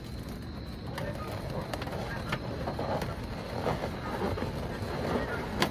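Latex balloons rubbing and squeaking against each other as a foil pumpkin balloon is pushed into a balloon garland and tied in, with a sharp click just before the end.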